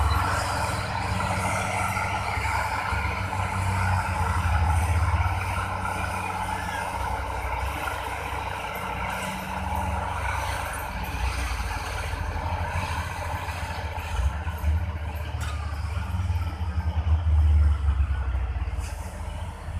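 Heavy earthmoving machinery at work: crawler bulldozers and a loaded dump truck running their diesel engines, a steady low rumble that swells a little near the end.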